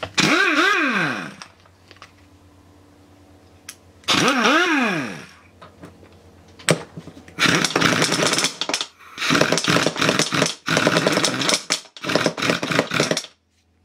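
Electric impact wrench tightening the nut on a gear in an engine crankcase. Twice the motor briefly spins up and winds down, then from about halfway it hammers in a run of rattling bursts as the nut is driven tight.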